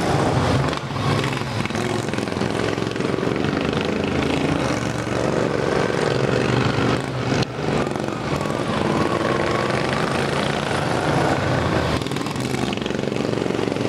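Racing riding lawn mowers' engines running at high revs, several at once, their pitch rising and falling as they accelerate and pass through the turns.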